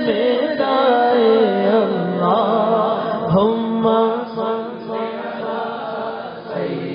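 A man singing a naat (Urdu/Punjabi Islamic devotional song) into a microphone, drawing out long wavering melismatic notes with no instruments. A steady low note is held under the melody for about three seconds past the middle.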